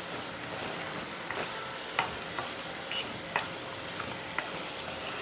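Garlic cloves, dried red chillies and panch phoron whole spices sizzling in hot mustard oil in a non-stick pan. A wooden spatula stirs them, with a few light taps against the pan.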